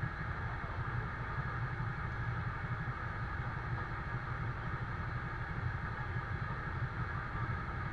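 Iveco GCBA 10/32 fire engine's diesel running steadily at a fixed speed to drive its fire pump, which feeds the hoses to a water sprinkler. It makes a steady low drone with an even hiss above it.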